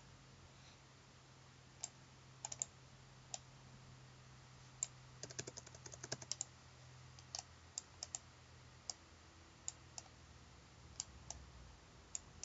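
Scattered clicks of a computer mouse and keyboard keys, with a quick run of key presses about five to six seconds in, over a faint low hum.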